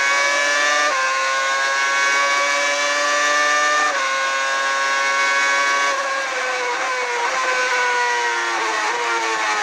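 Red Bull RB6 Formula 1 car's 2.4-litre Renault V8 running at high revs with a high-pitched note. Its pitch dips briefly at two quick gear changes, about one and four seconds in, then falls steadily over the last few seconds as the car slows.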